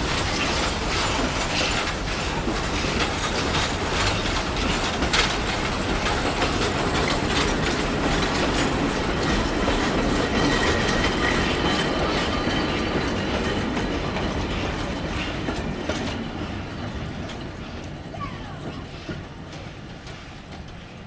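Steam-hauled train of wooden passenger carriages rolling past on the rails, its wheels clicking over the rail joints. The sound fades steadily over the last several seconds as the train draws away.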